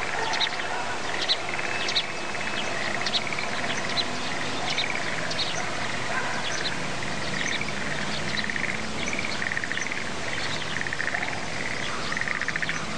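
Frogs calling in chorus from the rice paddies: overlapping trains of rapid pulsed croaks, one after another, with short high chirps mixed in.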